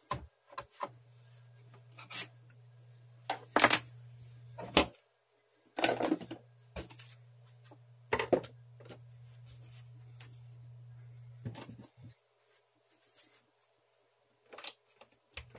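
Irregular clicks, taps and rubbing of objects being handled, about ten in all, over a low steady hum that cuts out several times.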